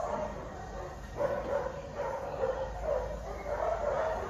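An animal's voice: a run of short, wavering calls, one after another.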